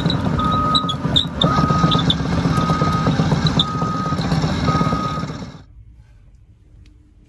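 Caterpillar 324D excavator travelling on its steel tracks, its travel alarm beeping steadily about once a second, each beep about half a second long, over the diesel engine and the rattle and squeak of the tracks. About five and a half seconds in the sound cuts off to a faint low hum.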